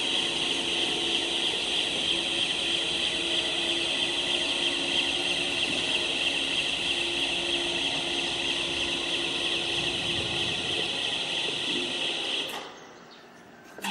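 Rail transfer cart travelling along its track, giving a steady high-pitched running sound that stops when the cart halts, about twelve and a half seconds in.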